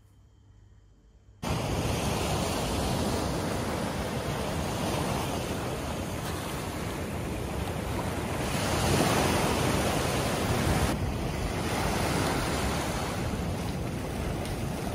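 Sea surf washing onto a beach, mixed with wind buffeting the microphone. It starts abruptly about a second and a half in and swells louder a couple of times.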